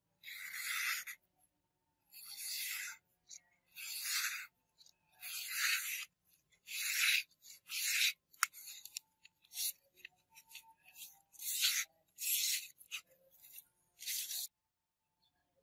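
A sharpened hunting knife blade slicing through a hand-held sheet of notebook paper in about ten separate strokes, each a short crisp hiss of paper being cut. The paper parts into thin strips, the usual sign of a sharp edge.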